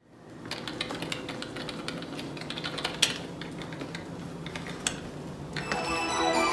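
Computer keyboards typing in an office, an irregular patter of key clicks over steady room noise. Music fades in near the end.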